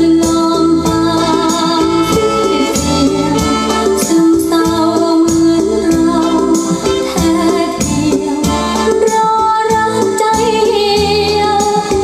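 Recorded music with singing and a regular beat, played through a pair of home-built loudspeakers and picked up by a microphone in the room.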